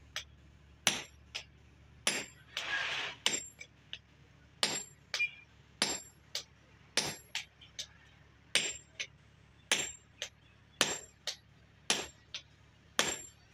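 Hammer blows on a top tool held against a red-hot adze head on an anvil, forging its socket. Roughly one heavy, ringing strike a second, with lighter taps between. A brief rushing hiss comes about two and a half seconds in.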